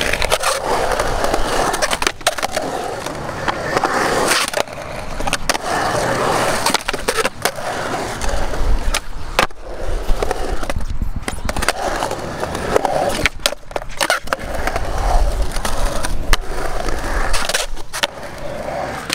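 Skateboard rolling on concrete in a bowl and skatepark, with its metal trucks grinding on coping and sharp clacks of the board hitting down every few seconds.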